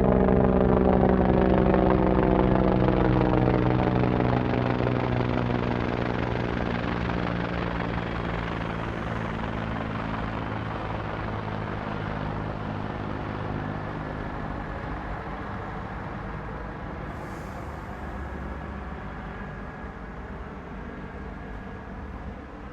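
Helicopter heard from outside, its rotor and engine drone loud at first and then fading steadily as it flies away.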